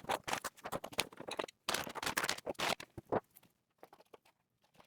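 Packaging rustling and crinkling as it is handled, a quick flurry of crackles that stops about three seconds in.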